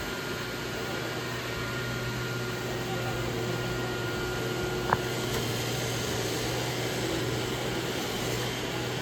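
Roomba robot vacuums running, a steady motor hum with a low drone and a thin high whine. A single sharp click comes about five seconds in.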